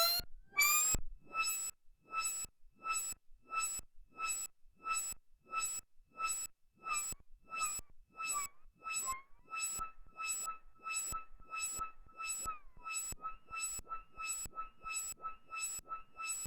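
Behringer Neutron semi-modular analog synthesizer playing an even run of short electronic pulses, about three a second, each carrying a high tone. In the first second the pitch glides down; from about two-thirds in, a steady high tone holds between the pulses.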